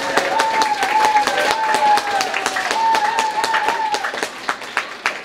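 Audience clapping, with a woman's long, high cheer held over the applause for about four seconds. The clapping thins out near the end.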